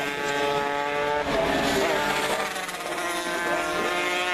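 Classic racing motorcycles running hard through a corner, several engine notes overlapping and rising and falling in pitch as the bikes pass and accelerate away.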